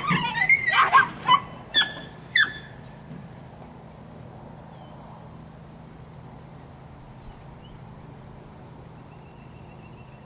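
Dog barking in quick, high-pitched yaps for about the first second and a half, then two more short barks, after which only a steady low hum is left.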